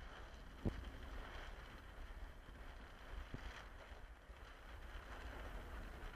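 Wind buffeting the microphone as a steady low rumble, over faint open-air noise. A sharp knock comes about two-thirds of a second in, and a softer one at about three and a half seconds.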